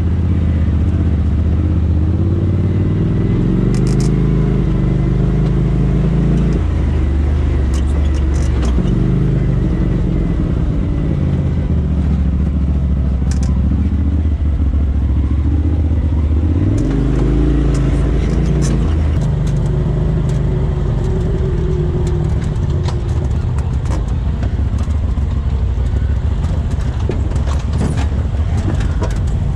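Turbocharged Polaris RZR side-by-side engine running and revving up and down as it crawls up a rough, rocky trail, its pitch shifting every few seconds with the throttle. Scattered knocks and clatter come from the tyres and chassis working over rocks, more of them near the end.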